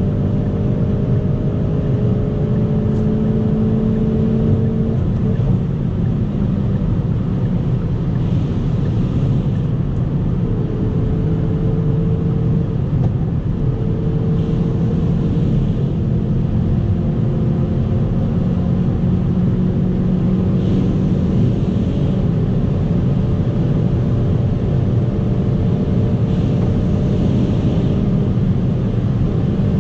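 Hyundai i30 N's 2.0-litre turbocharged four-cylinder pulling in a high gear at well over 170 km/h, heard inside the cabin under heavy wind and tyre noise. The engine note climbs slowly as the car gains speed.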